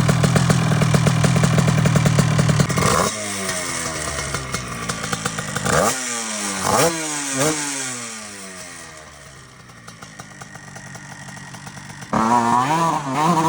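Two-stroke mini bike engine running hard at high revs, then dropping in pitch and fading as it pulls away, with three quick throttle blips along the way. About twelve seconds in, the engine is loud again with a wavering pitch.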